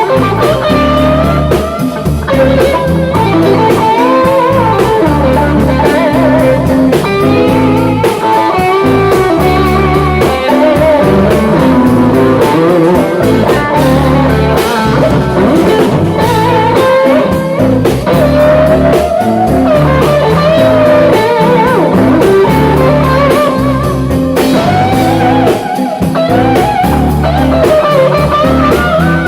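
Live rock band playing a blues-rock instrumental passage: an electric guitar plays a lead line of bending, wavering notes over bass and a drum kit.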